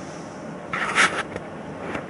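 Steady road and engine noise inside a moving car's cabin. About a second in there is a loud, brief rustling scrape, with a smaller one just after.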